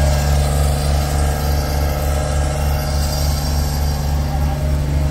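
An engine running steadily at idle: a low, even drone with a slight pulse.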